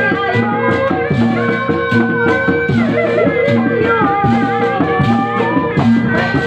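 Live Sundanese bangreng music: a wavering, held melody over a steady, repeating drum pattern.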